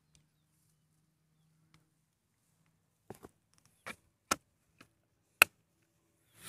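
A handful of short, sharp plastic clicks and knocks as a perforated plastic basket's lid is handled, after about three seconds of near quiet. The loudest click comes about five and a half seconds in.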